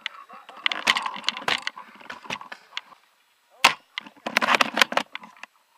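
Irregular sharp cracks and clicks on wood: airsoft BBs striking the wooden barricade and branches. The cracks come in a dense crackly cluster for the first two seconds, then a single crack, then another quick cluster about a second later.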